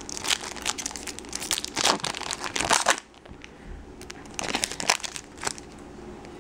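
Foil wrapper of a 2012 Bowman Draft Picks baseball card pack crinkling as it is torn open by hand: about three seconds of dense crinkling that cuts off sharply, then a few more crinkles about a second later.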